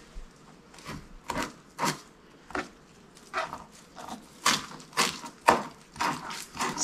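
Chef's knife mincing cilantro on a plastic chopping board: separate knocks of the blade striking the board, about two a second and unevenly spaced.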